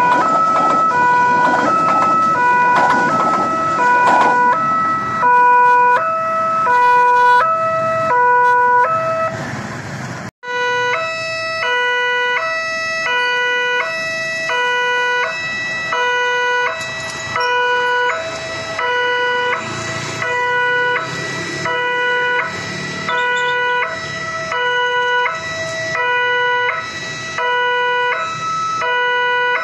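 Railway level-crossing warning alarm sounding its two-tone electronic chime, a high and a low note alternating about once a second. For the first few seconds a passing train's rumble runs under it, and the sound drops out for an instant about ten seconds in.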